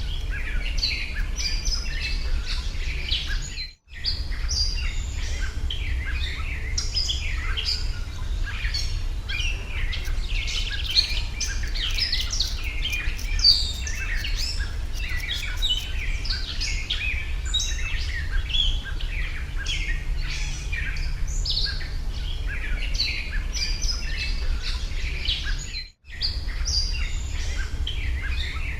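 Many small birds chirping densely and without pause, over a steady low hum. The sound drops out completely for an instant twice.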